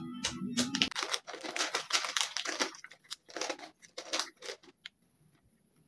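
Crinkly plastic potato-chip bag being handled and pulled at, a rapid irregular run of crackles that stops about five seconds in.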